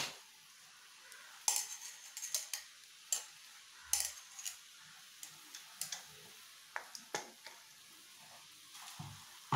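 Sharp metal clicks and taps as a mixer-grinder jar of ground peanut, garlic and chilli powder is knocked out over a metal kadai, clustered in the first half, then a few scattered clinks.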